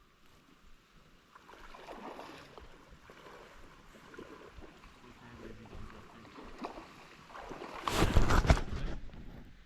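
Faint rush of a high, fast creek with scattered small ticks. About eight seconds in, a loud rumbling burst lasts about a second and a half.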